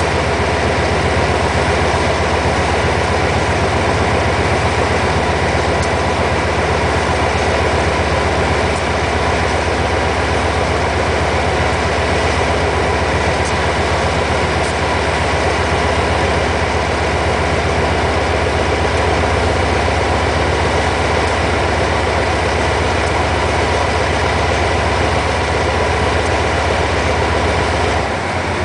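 Twin Cummins KTA-50L diesel engines of a GE CM22-7i (GEA) diesel-electric locomotive running steadily with the locomotive standing still: a constant loud engine sound with a fast low throb. The sound drops a little near the end.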